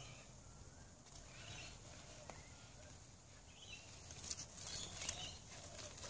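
Faint scratching and rustling of hands digging through loose soil and potato leaves, busiest in the second half. A few faint bird chirps sound early on and about two seconds in.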